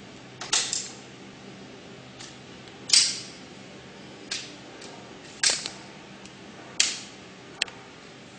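Sharp metal clacks and knocks from an aluminium roll-up banner stand as its sectional pole is handled and fitted together, about eight of them at uneven intervals, the loudest about three seconds in.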